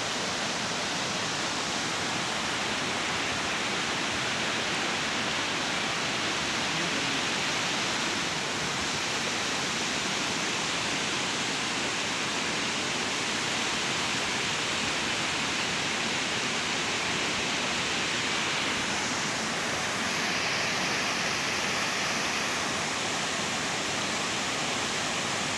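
Spring water rushing and splashing over rocks and small cascades in a steady, unbroken rush.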